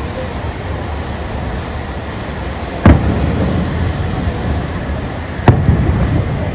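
Fireworks exploding: two sharp bangs about two and a half seconds apart, the first the louder, over a steady rumbling background noise.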